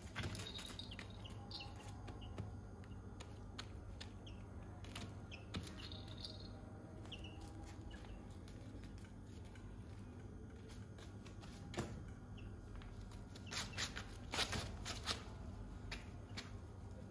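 Quiet taps, scratches and rustles of young chickens pecking and stepping on a tarp floor, with a few faint high peeps, over a low steady hum. A brief flurry of taps and rustles about three-quarters of the way through is the loudest moment.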